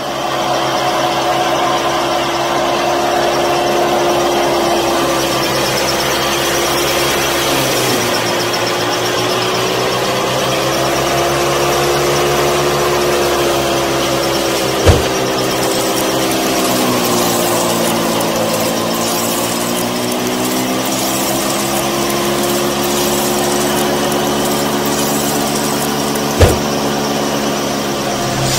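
Small electric motor of a miniature model wheat thresher running with a steady whine, its pitch sagging and recovering twice in the middle as the load changes. Two sharp knocks, about halfway and near the end.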